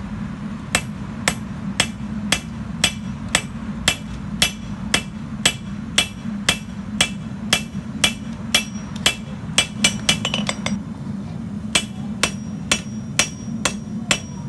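Forging hammer striking a red-hot knife blade on an anvil to forge in the edge bevel: a steady run of sharp, ringing blows about two a second, with a short pause about eleven seconds in before the blows resume.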